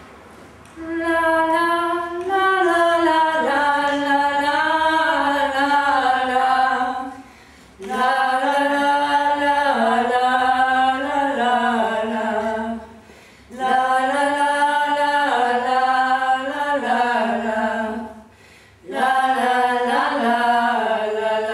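Two women singing unaccompanied in four long phrases with short pauses for breath between them.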